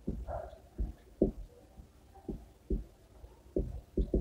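Marker writing on a whiteboard: a series of short, soft low thumps, about eight at irregular intervals, as the pen tip strikes and presses on the board with each stroke.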